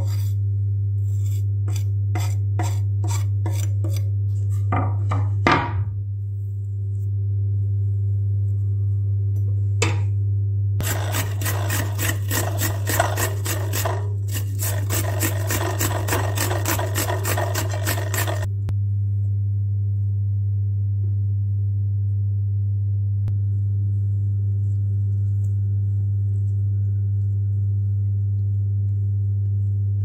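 A cucumber is grated on a stainless steel box grater: a run of quick rasping strokes, several a second, lasting about seven seconds in the middle. Earlier there are a series of light ticks. A steady low hum runs throughout.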